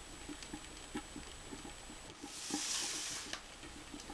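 Small handling noises on a table: soft scattered clicks and taps, with a short hissing swish about two seconds in.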